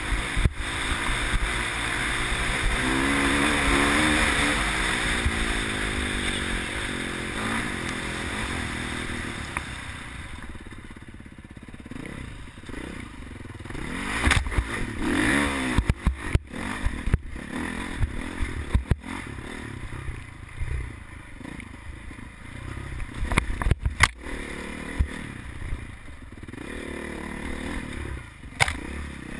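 Dirt bike engine revving up and down under hard acceleration, heard from the bike itself. After about ten seconds it runs quieter at lower revs while sharp knocks and clatter break in again and again as the bike jolts over rough ground.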